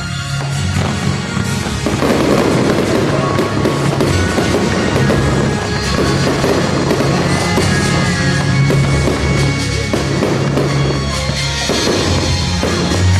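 Fireworks crackling and popping densely over loud music with a steady bass line; the crackle thickens about two seconds in, with a few whistles near the middle.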